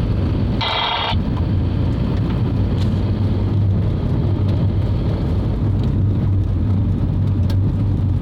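Van driving slowly, with a steady engine hum and road rumble heard from inside the cab. A brief high-pitched tone sounds about half a second in.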